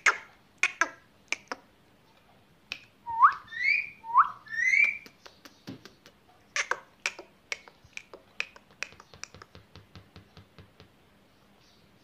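Indian ringneck parakeet making sharp clicking sounds and two short rising whistles about three and four seconds in, then a quick run of clicks that grows faster and fainter.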